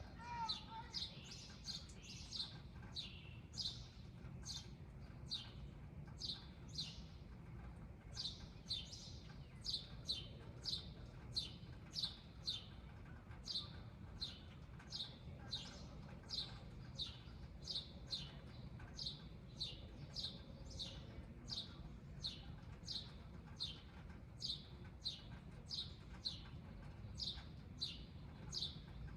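A small bird chirping over and over, short high chirps at about two a second, kept up steadily, over a low background rumble.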